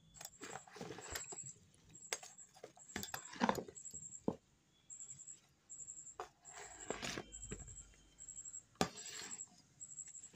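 Steel slotted spoon clinking and scraping in a plastic tub of wet, salted raw mango pieces, as scattered sharp knocks and a few short scrapes.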